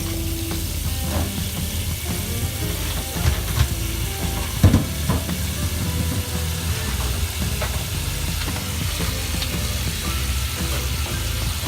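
Steady hiss of kitchen background noise, with a few sharp knocks about halfway through, the last one the loudest.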